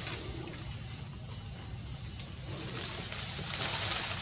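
Steady outdoor background noise: an even high hiss with a thin steady high tone over a low rumble, growing somewhat louder near the end.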